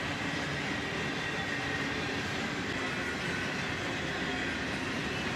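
Long freight train of covered hopper cars rolling past, a steady run of wheels on rail with a faint high steady tone over it.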